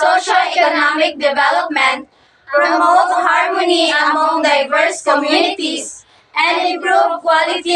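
A group of young women speaking in unison, reciting a mission statement in chorus in phrases separated by short pauses about two and six seconds in.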